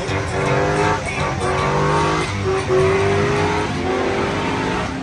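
Chevrolet Silverado pickup doing a burnout: the engine revs hard in repeated rising pulls while the spinning rear tires squeal, the squeal strongest about two and a half seconds in.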